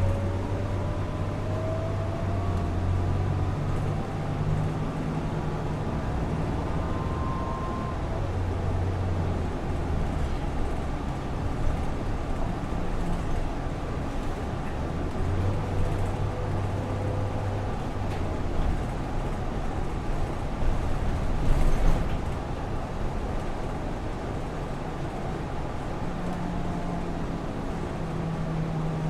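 City street traffic: car and bus engines running and passing, with pitches that rise and fall as vehicles go by. There is one brief louder knock about three-quarters of the way through.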